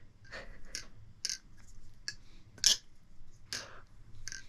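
Balisong (butterfly knife) being flipped: its handles and blade click and clack against each other in irregular strokes, with one louder clack a little past the middle.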